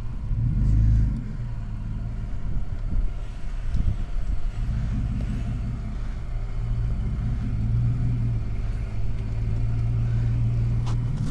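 Toyota Fortuner SUV's engine running at low revs as it reverses slowly through soft sand: a steady low drone that swells slightly near the end.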